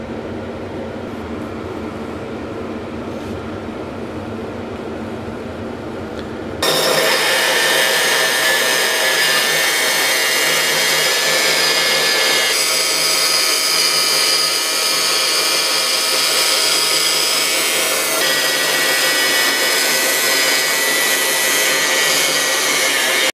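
A steady low hum for about the first six seconds, then a bandsaw cuts in abruptly, running loud and steady as its blade saws a thick laminated hickory axe-handle blank along a marked outline.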